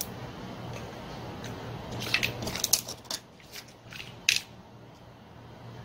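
Small metal clicks and clinks as a chainsaw carburetor and small tools are handled on a workbench during disassembly, with a cluster about two seconds in and a sharp click just past four seconds. A steady low hum runs underneath.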